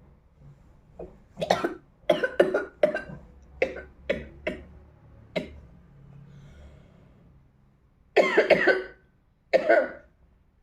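A woman coughing: a quick run of about nine short coughs, a pause, then two longer coughs near the end.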